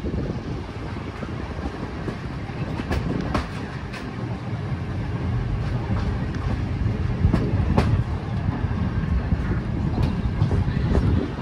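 Train rolling past on the tracks: a steady low rumble, with the sharp clacks of wheels going over rail joints at uneven intervals.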